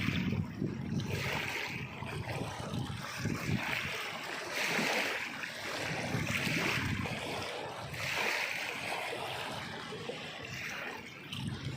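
Water splashing and sloshing in repeated surges that swell and fade every second or two.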